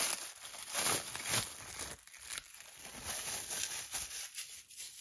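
Packaging being torn open and crinkled by hand, with several loud rustling bursts in the first two seconds, then softer handling noise.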